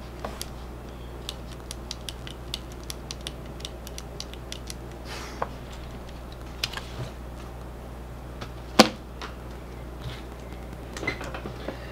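Small plastic clicks and taps of FPV goggle housing parts and circuit boards being handled by hand, a quick run of them early, then scattered ones, with one sharper click about nine seconds in. A low steady hum lies underneath.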